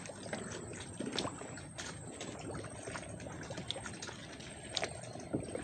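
Water sloshing and trickling, with scattered small clicks and knocks.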